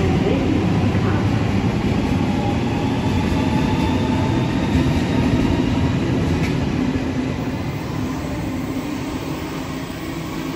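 Sydney Trains Waratah A-set double-deck electric train pulling out of an underground platform: steady rumble of wheels and traction equipment, fading from about seven seconds in as the train draws away into the tunnel.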